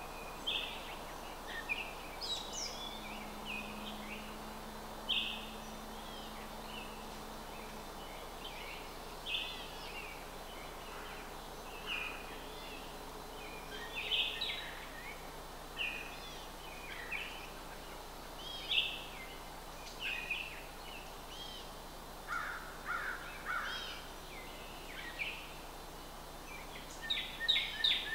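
Small birds calling in short chirps every second or two over a steady background hiss, ending in a quick run of repeated notes.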